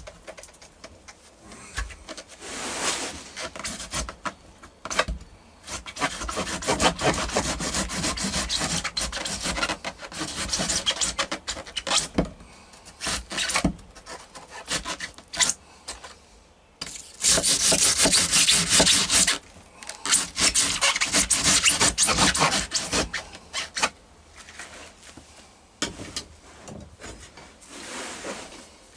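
Scraping, rasping and tearing as rotted boat floor and waterlogged foam are cut and pried out of the hull, in irregular strokes with scattered knocks. Two longer, louder stretches of continuous rasping come past the middle.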